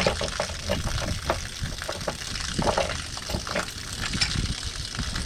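Water draining out of an old hot water heater tank and splashing, a steady hiss with many irregular small clicks and knocks through it.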